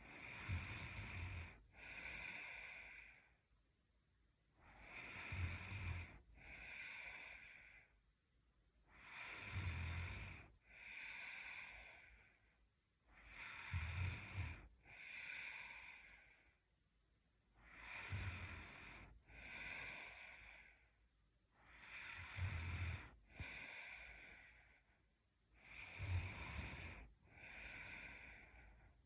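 A young woman snoring in her sleep, about seven slow, even breaths, one every four seconds or so. Each breath comes in two parts: a snore with a low rattle, then a breathy hiss.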